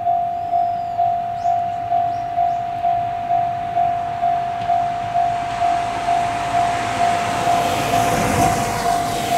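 Japanese level-crossing warning bell ringing steadily, about two strikes a second. Over the last few seconds the running noise of an approaching Ohmi Railway 800-series electric train (set 802F) grows, loudest near the end.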